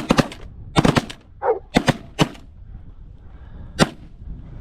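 Several hunters' shotguns firing on incoming Canada geese: a rapid, ragged volley of shots over the first two and a half seconds, then one last single shot near the end.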